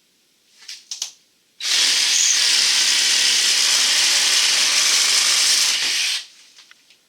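A power tool running steadily with a loud hissing sound for about four and a half seconds, starting and stopping abruptly, with faint clicks and handling noises before and after.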